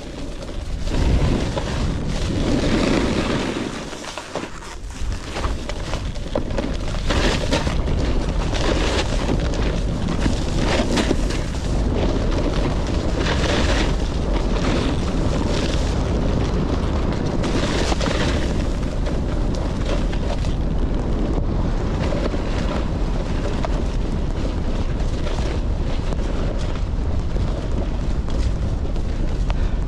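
Wind buffeting a helmet or chest camera's microphone while snowboarding downhill, with the board sliding and scraping over snow. A steady rush that swells louder every few seconds.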